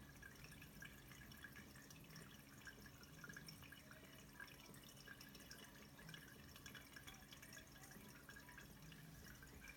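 Pet water fountain running quietly: faint, irregular dripping and trickling of water over a low steady hum from its pump.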